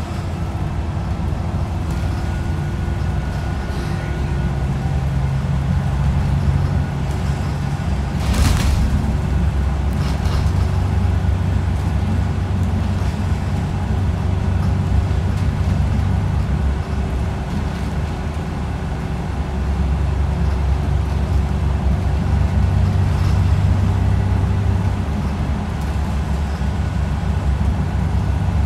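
Bus engine and drivetrain droning inside the passenger cabin: a steady low rumble with a faint whine above it, shifting in pitch a few times as the bus slows and pulls away. A short hiss comes about eight seconds in.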